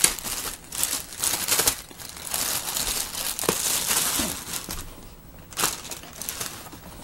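Rustling and crinkling as a zippered speaker carry case is handled and taken out of its bag, with a short knock about five and a half seconds in.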